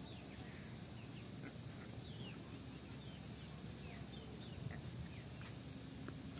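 Small birds chirping now and then, each call a short falling note, over a low steady background rumble.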